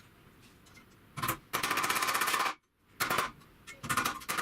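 A power tool hammering fasteners into a metal joist hanger: short bursts of very rapid, even impacts, well over ten a second, starting about a second in and stopping and starting twice.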